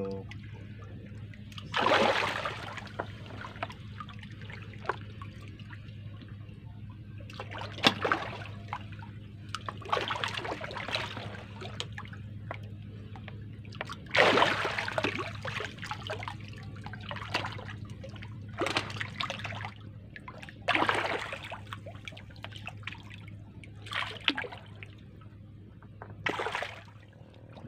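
Humphead (Napoleon) wrasse splashing at the surface of a floating net cage as they snatch at food, with short splashes every few seconds over a steady low hum.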